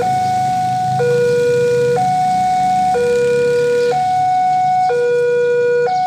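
Railway level-crossing warning alarm sounding a loud two-tone electronic signal, a higher and a lower tone alternating with each held about a second, as the crossing barriers come down: a train is approaching.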